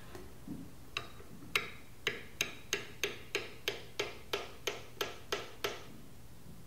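About fourteen light, sharp taps, roughly three a second, seating a lathe spur center into the end grain of a square tzalam blank to mark its center.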